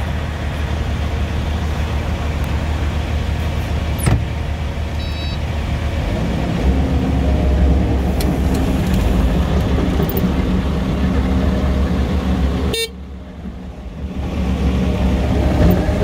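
Kubota SVL95 compact track loader's engine running steadily, getting louder and pulling harder from about six seconds in. The sound drops away sharply for about a second near thirteen seconds in.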